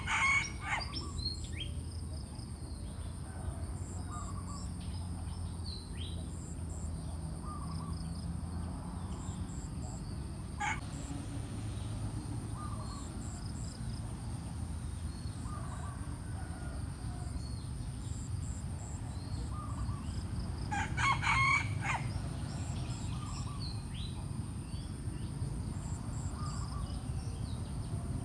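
Red junglefowl rooster crowing twice, once at the very start and again about twenty seconds later. Small birds chirp throughout.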